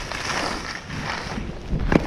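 Blizzard skis sliding over groomed snow with a rough, swelling hiss and scrape, and wind rumbling on the microphone; a louder scrape near the end.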